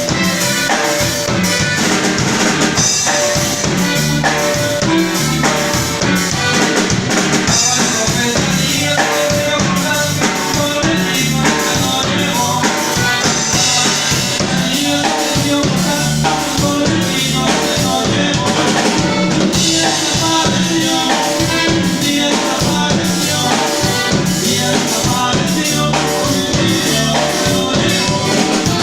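Music with a steady drum-kit beat and bass drum.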